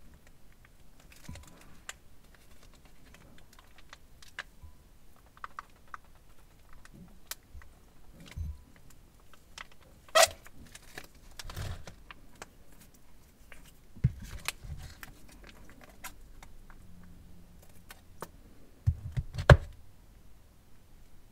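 Plastic piping bags crinkling and rustling as they are handled and squeezed over a glass bowl, with scattered light clicks and taps. A sharp click comes about halfway through and a louder knock near the end.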